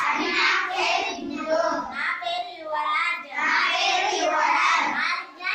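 A group of children chanting a lesson together in a sing-song recitation, their voices running on almost without pause.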